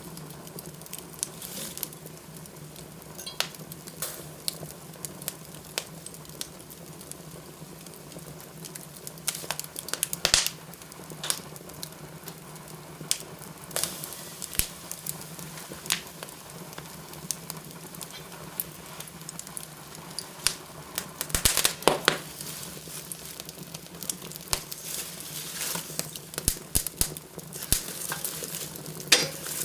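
Wood fire burning in a fireplace, crackling steadily with irregular sharp pops and snaps. The loudest snaps come about ten seconds in, again near fourteen seconds, and in a cluster a little after twenty seconds.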